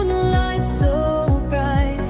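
Pop love-song music with a steady beat, a pause between sung lines.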